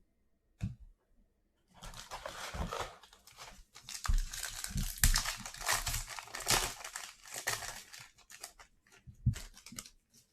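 Foil trading-card pack being torn open and its wrapper crinkled, in uneven bursts for several seconds, with a few short handling taps before and after.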